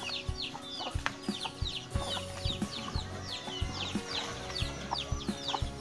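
Chicks cheeping: quick, high, falling peeps, about three a second, over background music with a steady beat.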